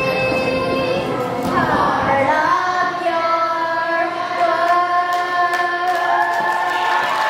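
Children singing a musical-theatre number over backing music, holding long notes; the voices glide upward about two seconds in.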